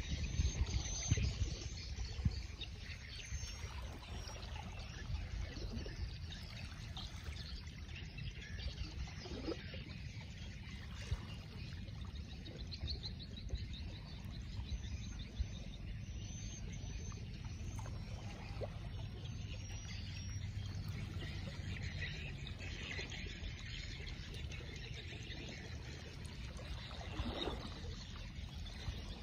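Outdoor ambience: a steady low rumble, louder in the first two seconds, under a faint high haze, with scattered short bird chirps.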